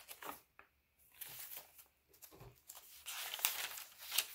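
Paper rustling as the pages of a handmade junk journal are handled and turned, louder from about three seconds in, with a couple of sharp paper flicks near the end.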